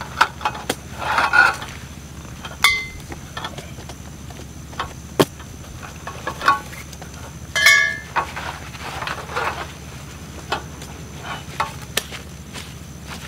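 Folding camp chairs being set up: metal frame tubes knocking and clicking, with two ringing metallic clinks and fabric rustling in between.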